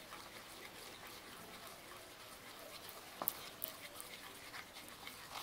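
Plastic spoon stirring white glue and green food colouring in a plastic bowl: faint scraping and clicking, with a couple of sharper clicks of the spoon against the bowl a little past the middle.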